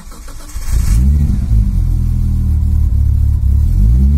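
Nissan R33 Skyline's inline-six engine starting: it catches about half a second in and runs steadily, with the revs rising near the end.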